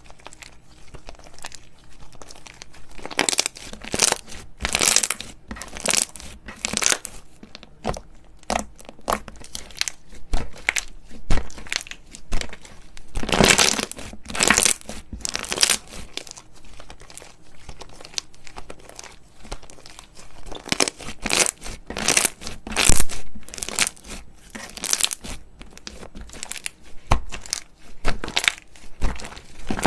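Crunchy slime being squeezed and pressed by hand, crackling in many short, irregular bursts, with the densest, loudest stretches about halfway through and again past two-thirds of the way.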